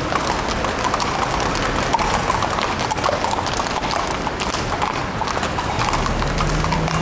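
Several horses walking on stone paving, their hooves clip-clopping in an uneven patter over street noise; a steady low hum joins near the end.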